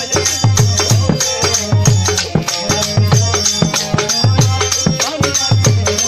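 Live baul folk music: a hand drum beats a quick rhythm of deep strokes that drop in pitch, over jingling hand cymbals and a held melody.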